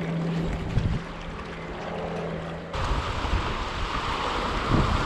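River water rushing and wind buffeting the microphone. A steady low hum runs through the first part and stops abruptly a little under three seconds in, where the water rush becomes louder and hissier.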